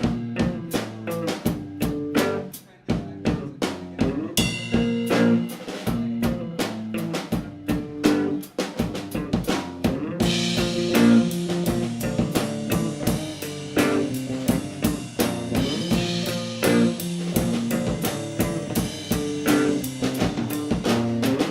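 Live rock band playing an instrumental passage: drum kit with snare and bass drum hits under bass and guitar chords. The playing gets fuller and brighter about halfway through.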